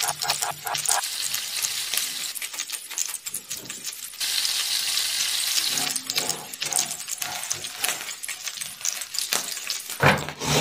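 Wooden spatula stirring and scraping vegetables and rice frying in a hot pan, a rapid run of scrapes and taps over a sizzle. For about a second and a half in the middle the sizzle runs steady without stirring, and near the end there is a louder knock.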